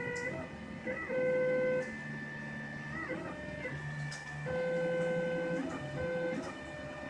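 Da Vinci 3D printer's stepper motors whining at a series of steady pitches as the print head moves, with a short glide in pitch at each change of move. Two of the moves, a little after a second in and again around the middle, are louder.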